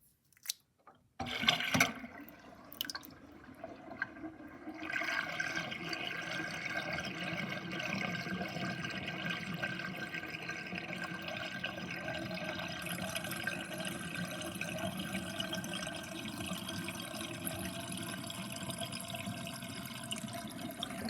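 Kitchen sink drain with a drain basket gurgling as water runs down it. A couple of small clicks and a sudden rush come about a second in, then a steady gurgling flow from about five seconds on.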